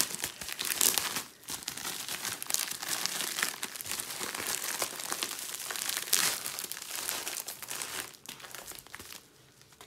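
Plastic postal mailer and padded envelope crinkling and rustling as they are pulled open and a diamond painting kit in clear plastic wrap is slid out. A sharp rip right at the start; the rustling dies down shortly before the end.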